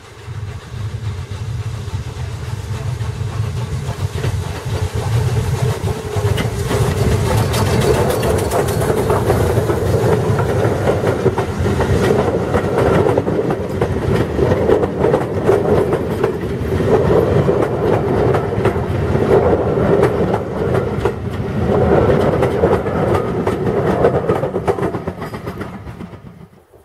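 Steam-hauled passenger train passing close by at speed. The sound builds as the locomotive approaches, then carriage wheels clatter over the rail joints as the coaches run past. It fades and is cut off suddenly near the end.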